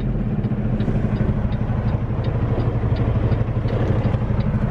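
Semi truck's diesel engine running steadily under way, a low drone heard from inside the cab, with a faint regular ticking above it.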